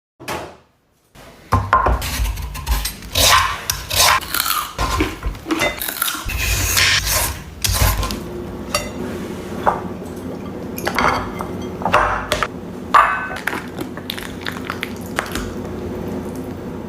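Kitchen clatter: utensils and dishes knocking and scraping in quick irregular strokes, with a steady hum coming in about eight seconds in.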